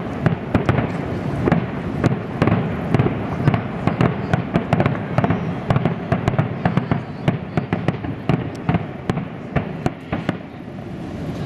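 Aerial firework shells bursting in rapid succession: a dense, steady run of bangs and crackling pops, several a second, easing off slightly near the end.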